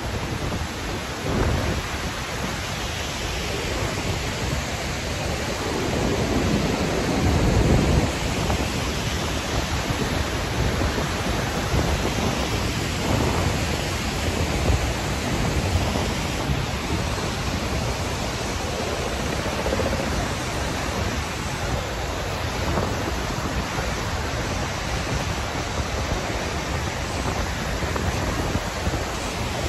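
Steady roar of Iguaçu Falls, falling and churning water heard close to the cascades. Low rumbles of wind buffet the microphone around seven to eight seconds in.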